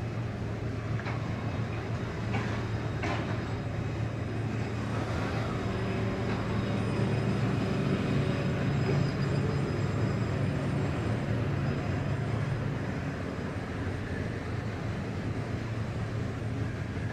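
Electric tram moving along street track, a steady low hum and rumble with a few clicks in the first seconds, growing louder toward the middle and easing off again as it passes.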